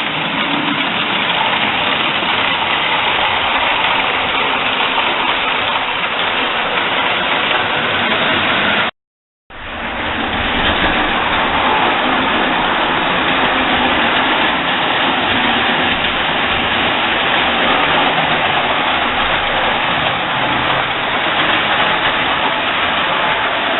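Standard-gauge model trains running on metal track: a steady rolling rumble and motor whir that breaks off completely for about half a second, about nine seconds in.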